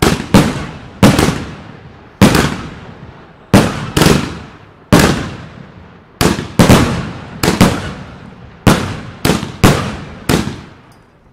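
Two Klasek DumBum BIG 50 mm fireworks cakes (36-shot, category F4) firing together. About fifteen sharp bangs come at uneven intervals, some in quick pairs, each dying away over about a second.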